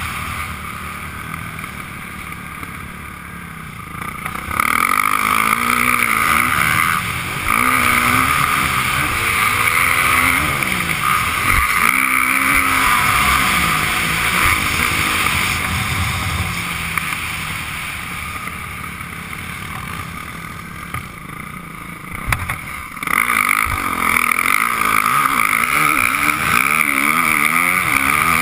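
Motocross dirt bike engine heard from the rider's helmet, revving up and down as the rider works the throttle around the track. It is quieter for the first few seconds and again about two-thirds of the way through, and pulls hard and loud in between and near the end.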